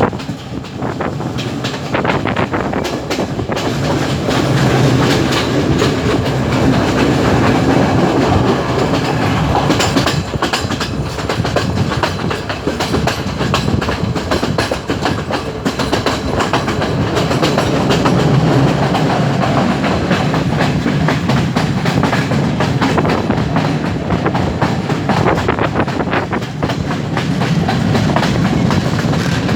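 Colombo–Badulla passenger train running along the track: a steady low rumble with rapid, irregular clicking of the wheels over the rails.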